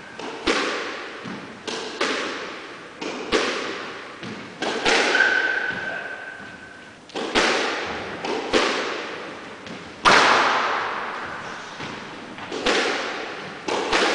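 Squash rally: the ball cracking off rackets and the court walls at irregular intervals of about half a second to a second and a half, each hit ringing on in the echoing court. A high squeak sounds about five seconds in, and the hardest hit comes about ten seconds in.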